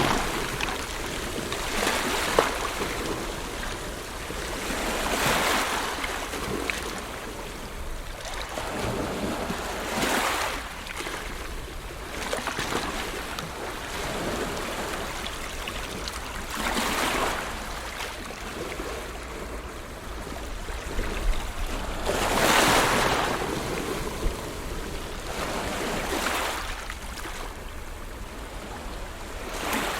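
Ocean waves breaking and washing ashore, each wave a broad surge of rushing water that swells and fades every few seconds, at uneven intervals, the loudest about two-thirds of the way through.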